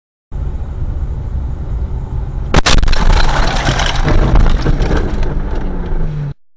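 Car collision recorded by a dashcam: a low rumble of the car on the move, then a sudden loud impact about two and a half seconds in. A loud, dense jumble of noise follows for several seconds, until the sound cuts off near the end.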